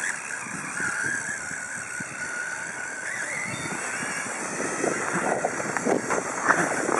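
Small robot rover's drive motor and gears whining at a steady high pitch as it drives away over grass, dropping out after about three seconds. After that, irregular rustling and crackling noise.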